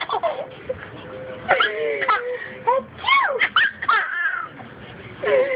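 A baby laughing in a string of short, high-pitched squealing giggles.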